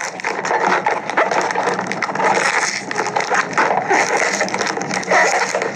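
Plastic mailer bag crinkling and crackling as it is pulled and torn at by hand to get it open.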